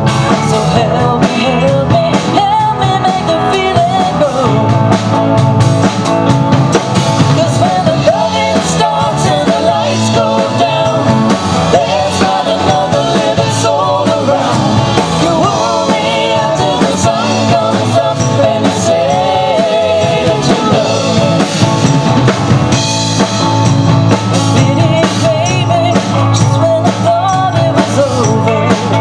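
Live rock band playing: a woman sings lead over electric guitars, bass guitar and a drum kit.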